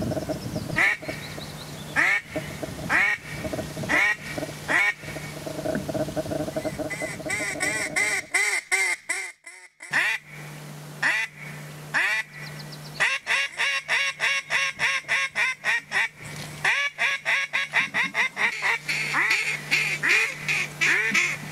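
Duck quacking: single loud quacks about once a second at first, then quick runs of several quacks a second, broken by a brief silence just before the middle.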